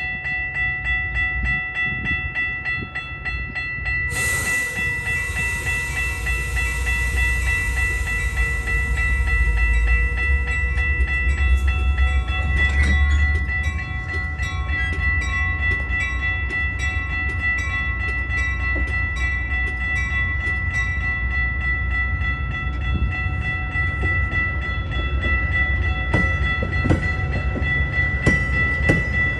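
Metra bilevel commuter train passing over a grade crossing: a steady rumble of wheels on rail that swells with a rush of hiss about four seconds in and eases after about thirteen seconds. Over it, the crossing's warning bell rings on and on in regular strokes.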